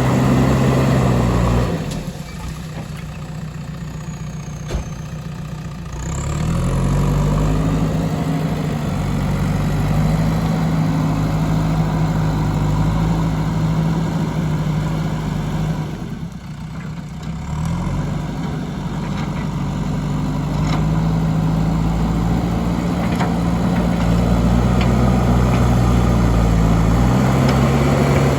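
JCB 3DX backhoe loader's diesel engine running: it rises from a low speed to a higher, held speed about six seconds in, drops back briefly around sixteen seconds, then climbs and holds high again.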